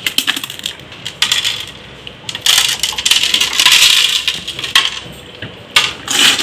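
Small coloured aquarium gravel stones dropped by hand into a fish tank: several runs of quick, light clicks and rattles as the pebbles hit each other and the tank.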